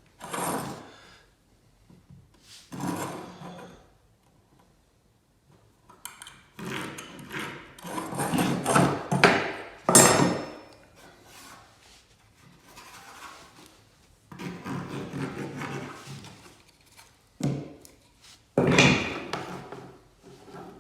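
Wood rubbing and scraping in irregular bursts with short pauses between, as pine floorboards are worked during a patch repair.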